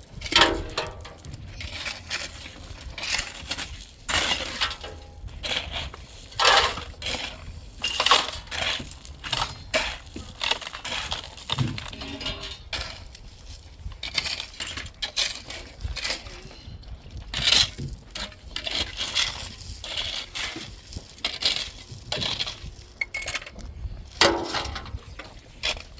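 Irregular sharp knocks and clinks, several a second with brief pauses, like hard objects being struck or handled.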